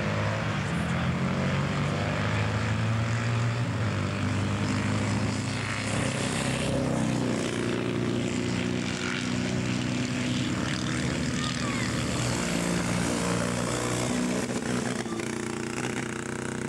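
Classic motorcycle engines running at speed around the circuit: a steady engine drone whose pitch shifts slightly as the bikes go by.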